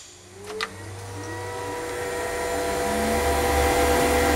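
Cooling fans and drive electronics in a CNC machining center's control cabinet spinning up after the main power is switched on: a click about half a second in, then a whine that rises in pitch and settles into a steady hum of several tones, growing louder throughout.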